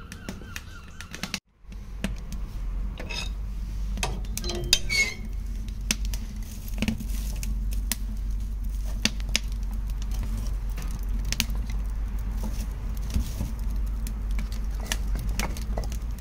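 Wood fire of oak and chestnut logs burning in a steel-drum firebox: crackling with frequent sharp pops, and metal clinks and knocks as a poker stirs the logs and a fresh split log is loaded in, over a steady low rumble.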